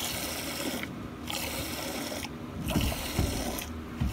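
Milk squirting from a cow's teat into a steel pail of frothy milk during hand milking: a hissing spray that comes in spells about a second long, three times, with short pauses between squeezes.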